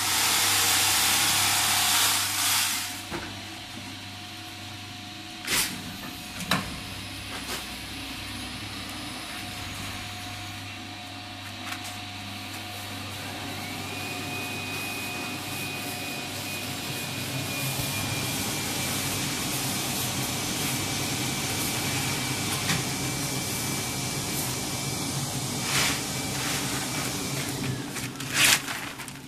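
JBJ-3 quilt coiling machine at work: a low electric hum, then about halfway a steady whine that glides up and holds while the machine coils a quilt into a tight roll, with a few sharp clunks. A loud rushing noise fills the first two seconds or so.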